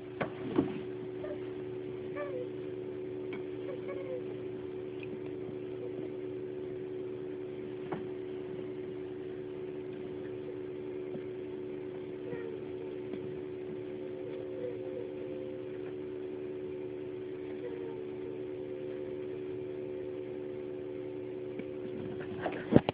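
Pet rabbit making short, faint noises every few seconds while being petted, over a steady low hum. A sharp knock comes near the end.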